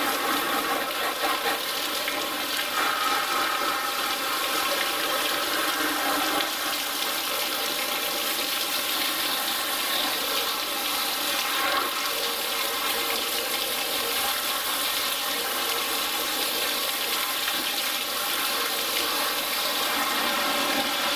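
Hose spray nozzle jetting water into the cabinet of a Maxi 310 refrigeration unit, a steady hiss with water splashing off the coils and frame as gunk and foam are washed out. The spray stops at the very end.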